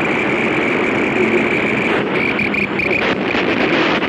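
Dense, loud radio static and interference noise from an FM transmitter-and-receiver setup, with a high steady whine that cuts in and out in the second half.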